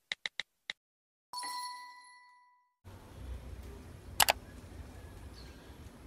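A quick run of short typing clicks, about six a second, as a title is spelled out, then a single bell-like ding chime that fades over about a second. After that, a steady outdoor background with a low rumble, broken by a sharp double click near the middle.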